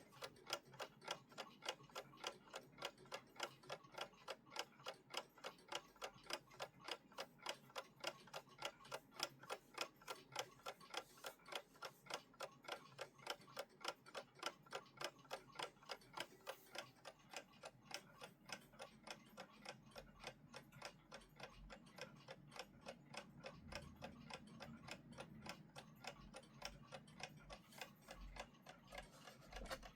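The movement of a WWI-era 'Kriegswecker' wind-up alarm clock ticking faintly in a steady, even rhythm, the clock running normally.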